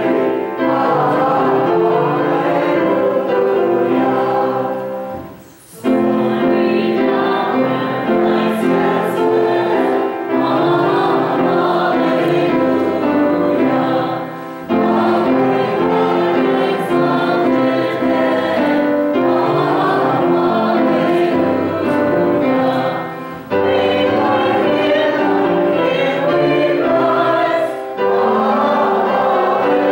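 A choir sings a church song with instrumental accompaniment, in long held phrases with brief breaks between them.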